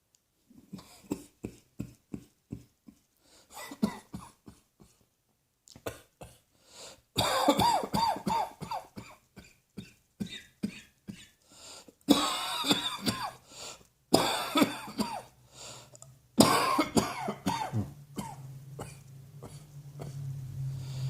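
A person coughing over and over: a quick run of short, fainter coughs, then louder, harsher coughing fits from about seven seconds in, each fit a string of coughs with short breaks between them.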